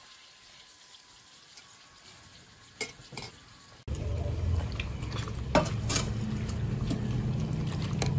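Hot oil sizzling faintly in a clay frying pan, with two light taps of a spatula. Then, after a sudden change, a metal spoon clinks and scrapes as softened dried chiles are scooped from an enamel pot into a glass blender jar, over a steady low hum.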